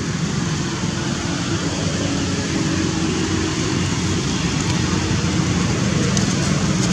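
Steady outdoor background noise from distant road traffic.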